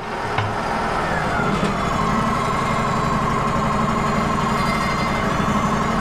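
Wood-Mizer LT35 portable sawmill running steadily. About a second and a half in, a hydraulic pump whine joins it as a hydraulic function is worked. The whine dips slightly in pitch and then holds steady, meaning the hydraulics are working at full speed now that the charging system has been repaired.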